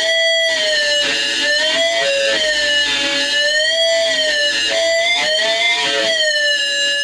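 Electric guitar feeding back through its amplifier: a loud, sustained howl that wavers slowly up and down in pitch, with guitar notes beneath it.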